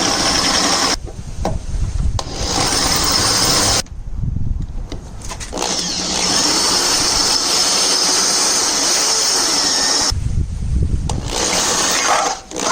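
Electric drill boring out a seized steel bolt, running in three bursts, the longest about four and a half seconds, and stopping about ten seconds in.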